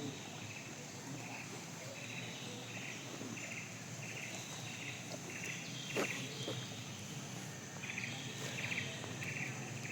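An insect chirping in short, rapid pulsed trills, about two a second, with a pause of about two seconds near the middle. A single sharp click sounds about six seconds in.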